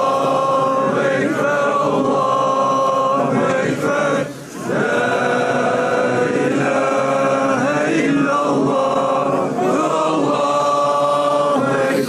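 A large crowd of men chanting in unison in long, drawn-out lines, with a short break for breath about four seconds in.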